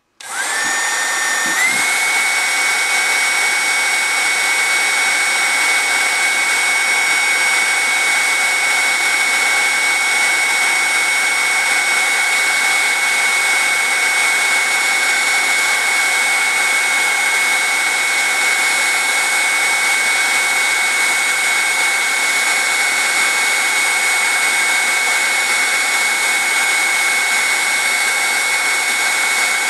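Black & Decker heat gun switched on, its fan motor spinning up over the first couple of seconds and then running steadily with a constant whine over the rush of blown air.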